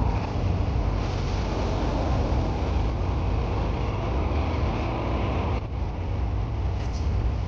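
Passenger train running, a steady low rumble with a rushing noise over it and a brief dip about five and a half seconds in.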